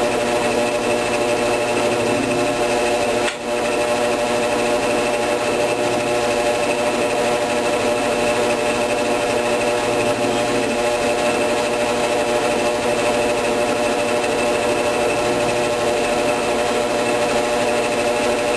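Drill press running steadily while small blade-entry holes are bored through a scroll saw blank with a small bit. The sound drops out for a moment about three seconds in.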